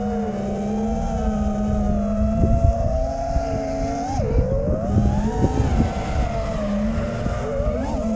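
FPV racing quadcopter's brushless motors whining in flight, several close tones whose pitch rises and falls with the throttle, with wind rumbling on the microphone underneath.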